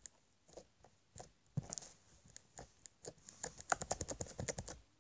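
Homemade slime being poked with fingers: scattered soft sticky clicks and pops, thickening into a quick run of clicks in the second half.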